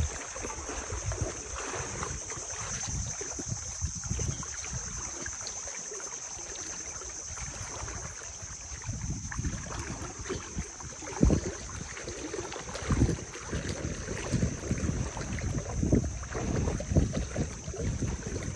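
People wading through knee-deep water, their legs sloshing and splashing in irregular steps, louder and more frequent in the second half. Wind buffets the microphone.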